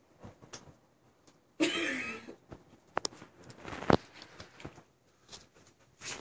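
A short cough-like sound about one and a half seconds in. Then a few sharp knocks and scuffles as a small dog clambers up onto soft couch cushions.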